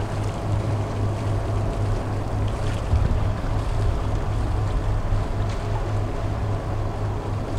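A catamaran's engine drones steadily while the boat motors along, with a low, even hum over the rush of water and wind.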